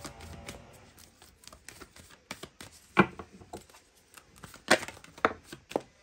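A deck of tarot cards being shuffled by hand: a run of light, irregular clicks and riffles of card stock, with a sharper slap of cards about three seconds in and a few more near the end.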